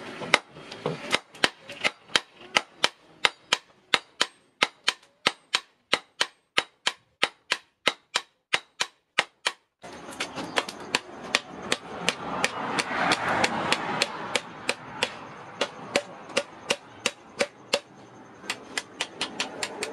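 Hand hammer striking red-hot steel on a small post anvil, sharp blows in a steady rhythm of about three a second. About halfway through a steady background noise comes in beneath the blows, which become less regular, with a short pause near the end.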